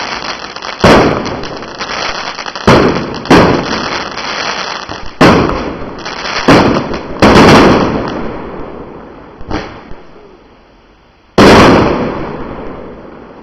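Aerial firework shells bursting in a run of about eight loud bangs at uneven intervals, each trailing off in a fading rumble. The last bang, about eleven seconds in, is the loudest, and the noise then dies away.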